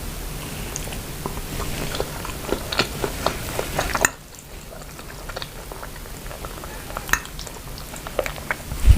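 Close-miked eating sounds: chewing noodles with grilled chicken and vegetables, with many short wet clicks and smacks. The background hiss drops suddenly about four seconds in, and a single low thump comes near the end.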